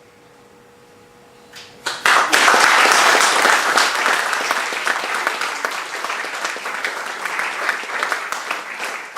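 An audience applauding. It begins with a few scattered claps about one and a half seconds in, swells at once into full applause, and then slowly dies down.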